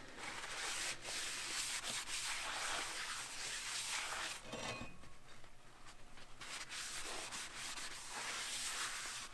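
Paper towel rubbed over the face of a new brake rotor, a steady scratchy wiping with a brief pause about halfway through, as the brake cleaner and anti-rust shipping film are wiped off.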